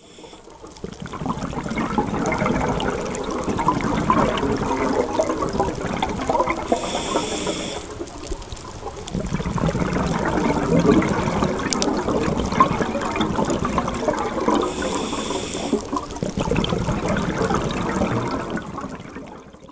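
Underwater bubbling and gurgling in two long surges with a brief lull between them, and a short hiss twice. It fades in at the start and fades out at the end.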